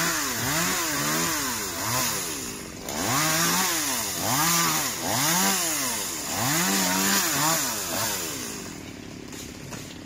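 Chainsaw running in the tree, its engine pitch rising and falling again and again as the throttle is opened and released. It settles to a quieter idle near the end.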